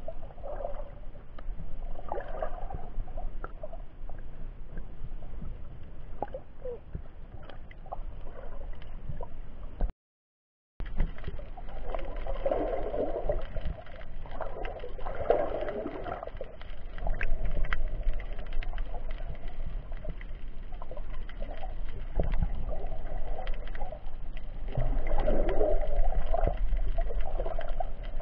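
Muffled underwater sound recorded from inside an action camera's waterproof case: a low rumble with swelling gurgles every few seconds and scattered faint clicks. The sound cuts out for under a second about ten seconds in.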